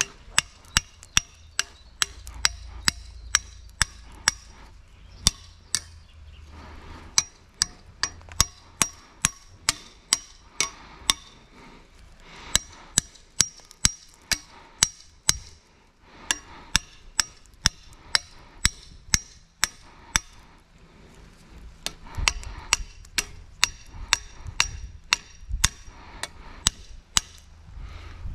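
A long series of sharp knocks, about two to three a second, with a few short pauses, over a faint low rumble.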